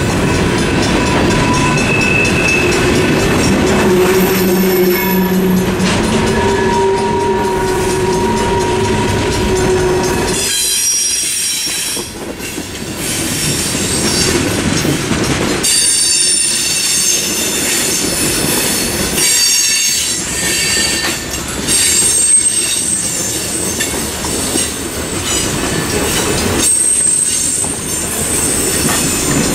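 A Norfolk Southern mixed freight train rolls past at a level crossing, a continuous rumble of freight cars on the rails. About ten seconds in, a high-pitched wheel squeal joins and keeps coming and going.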